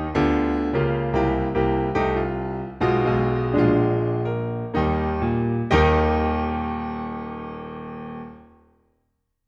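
Piano music: a run of struck notes and chords, ending on a final chord about six seconds in that rings out, fades, and stops about a second before the end.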